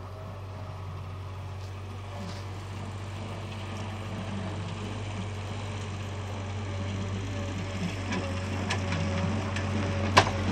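New Holland skid steer loader's diesel engine running steadily, growing louder as the machine comes close. A single sharp knock sounds near the end.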